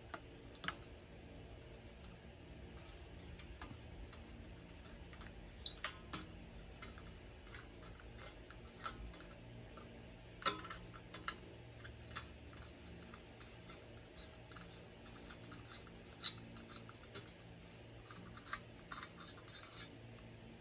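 Faint, scattered small clicks and ticks of metal parts handled by hand: a thermometer and its threaded fitting being worked loose from a stainless-steel still lid.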